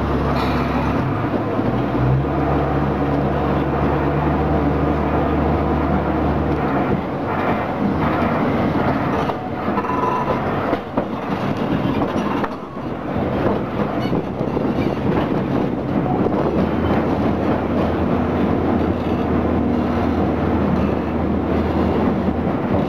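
Botchan Ressha replica locomotive's diesel engine running while the train rolls along tram rails, with wheel and running-gear rattle. Its low drone drops away for several seconds mid-way and comes back in the later part.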